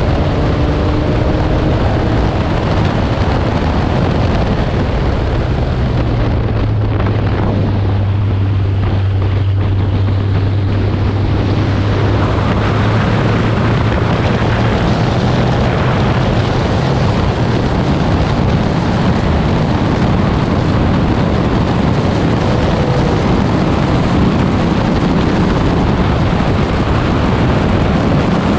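Porsche 944S's inline-four engine running at speed under a heavy rush of wind buffeting the microphone. A steady low engine note stands out from about six seconds to about seventeen seconds in.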